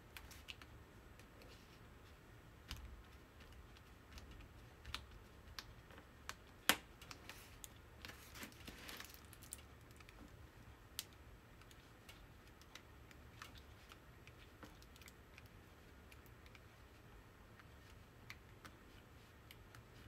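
Faint, scattered taps and clicks of a drill pen setting round diamond-painting drills onto the adhesive canvas, with a sharper click about seven seconds in and a brief rustle about eight seconds in.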